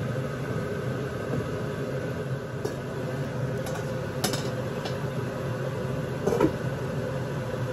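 Stainless-steel pot lid lifted off a large pot of boiling stew and set aside, giving a few light metal clinks, the sharpest about four seconds in, over a steady hum.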